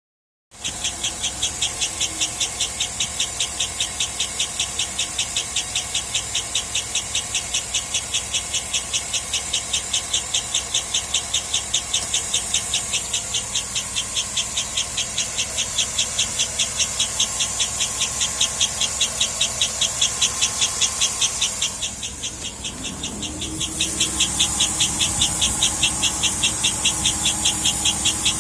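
2007 Cadillac Escalade V8 running with a rhythmic high-pitched chirp, about three a second, that remains with all drive belts removed, so it is not coming from a belt. The chirps dip briefly near the end, and a steady low hum joins them.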